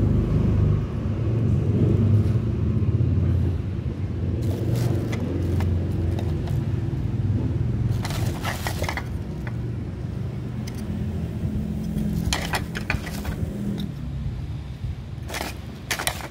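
Bubble-wrap packaging crackling and plastic lamp sockets clicking as they are handled, in several short bursts, over a steady low rumble that eases near the end.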